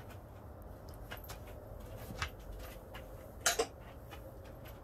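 Faint handling of a small motorcycle carburetor on a wooden workbench: small metal clicks, and a louder double knock about three and a half seconds in as it is set down.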